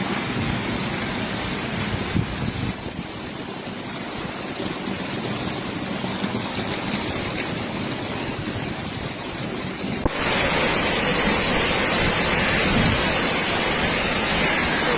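Storm-driven water: a steady rushing of rough sea and heavy rain with no distinct events. About ten seconds in it cuts to a louder, hissier rush.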